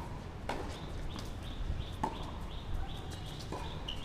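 Tennis ball struck by rackets in a rally on a hard court: three sharp pops about a second and a half apart, over a steady low rumble.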